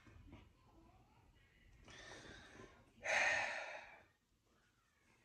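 A man breathing close to the microphone: a soft intake of breath about two seconds in, then a louder sighing exhale lasting about a second.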